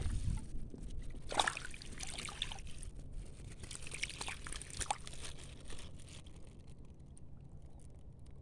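Water splashing and trickling in short, irregular bursts, dying away over the last couple of seconds.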